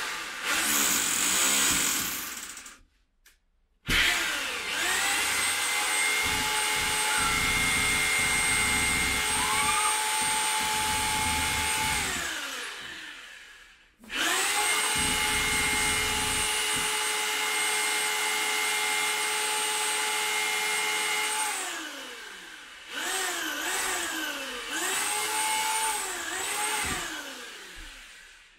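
Corded electric drill boring into a wall, its motor whining at a steady pitch under load. First a short run, then two runs of about eight seconds that each wind down as the trigger is released, then a few short trigger pulses near the end.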